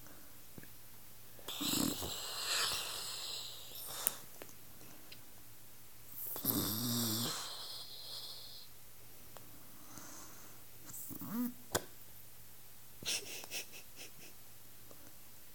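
An elderly woman snoring in her sleep with a strange-sounding snore: several separate snores, each a second or two long, come at irregular gaps of a few seconds.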